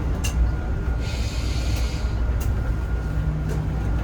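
Cabin of a Zhongtong hybrid range-extender city bus running: a steady low rumble with scattered rattles and clicks, and a short hiss about a second in.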